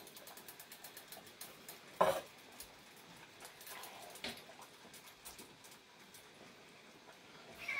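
Faint clinks and scrapes of a can and a cooking utensil against a metal saucepan of pasta sauce, with a sharp knock about two seconds in and another about four seconds in. A cat starts to meow at the very end.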